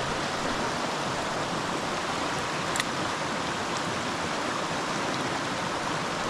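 Creek water running steadily, with one faint click about three seconds in.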